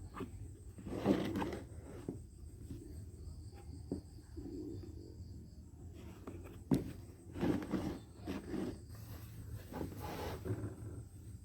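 Eating at a meal: short bursts of chewing and mouth noise with scattered clicks of chopsticks or a spoon on a bowl, over a low steady hum.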